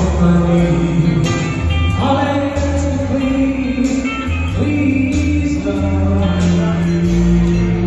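Live band music: a singer with guitar and a steady bass line.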